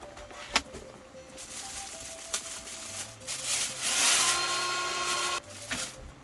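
Background music with a few sharp clicks, and a hissing, whirring mechanical noise that builds over about four seconds and cuts off suddenly.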